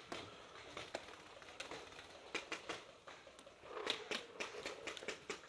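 Paintball markers firing around the field: a scatter of sharp pops, some in quick runs of several shots a second.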